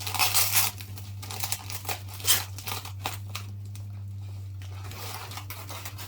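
Packing tape being torn and peeled off a parcel, with the wrapping crinkling, in a run of rustling bursts with a sharp tear a little after two seconds, then quieter handling of the packaging. A steady low hum runs underneath.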